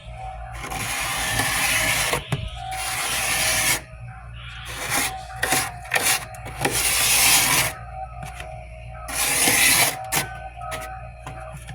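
Frost buildup being scraped off a humidifier in a series of rasping scraping strokes, each lasting one to two seconds, with short pauses between them.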